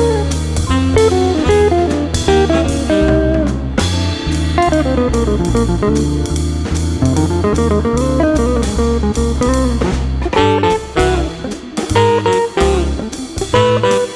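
Background music: an instrumental break of a blues-style song, with a plucked guitar solo over bass and a drum kit.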